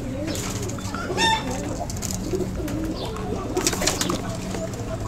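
Domestic pigeons cooing in a loft, a steady run of overlapping low, wavering coos. Two brief higher-pitched sounds cut in, about a second in and again near four seconds.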